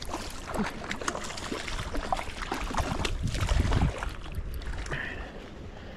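A hooked golden rainbow trout splashing and thrashing at the water's surface as it is reeled in, in a run of short sharp splashes, with a low rumble about three seconds in.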